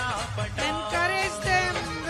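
Indian devotional (Krishna bhajan) dance music playing, a wavering, ornamented melody line carrying the tune over the rhythm.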